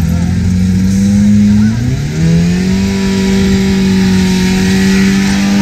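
Car engine revving hard and held at high revs during a tyre-smoking burnout. The revs dip briefly about two seconds in, then climb back and hold steady, with the hiss of spinning tyres over it.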